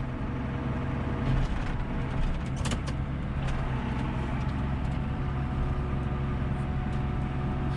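Farm tractor engine running steadily at a constant speed, with one sharp knock about two and a half seconds in.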